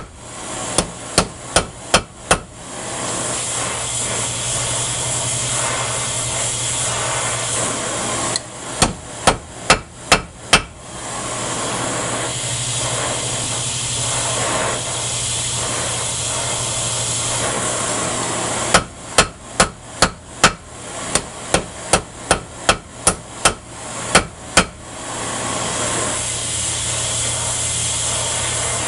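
A heavy hammer strikes hot bronze on a steel anvil in three runs of quick blows, about two to three a second. Between the runs a cutting torch flame rushes steadily while the piece is reheated.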